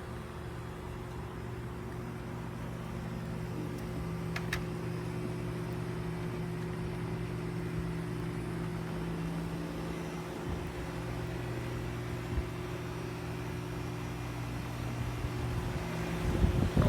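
Steady car engine and road hum, heard from inside the car, with a few knocks or bumps near the end.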